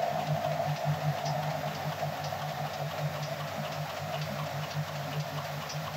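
Web-fed newspaper printing press running, its paper web feeding through the rollers: a steady machine hum with light ticking over it.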